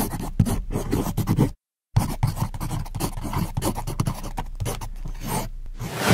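Quick, scratchy drawing strokes on paper, a sketching sound effect. It breaks off for a moment after about a second and a half, and a louder swell comes near the end.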